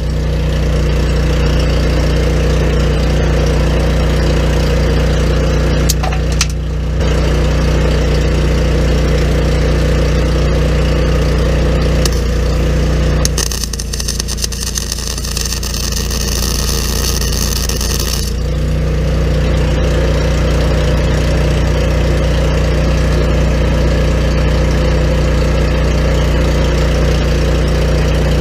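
A steady, loud machine hum with a low pitch. About halfway through, the hum drops back for several seconds while a bright hiss takes over, then the hum returns.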